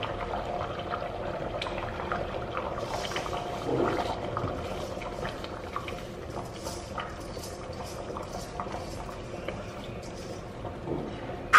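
Washed rice being scraped from a stainless-steel colander into a pot of meat broth, landing in the liquid, with many small ticks of a spoon against the metal colander.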